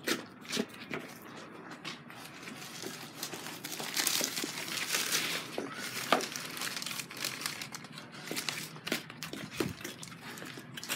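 Brown paper crumpled and crinkled in the hands: irregular crackling and rustling, busiest in the middle.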